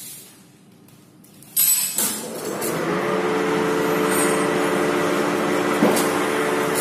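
Pipe-bending machine's motor starting with a clunk about a second and a half in, then running with a steady hum.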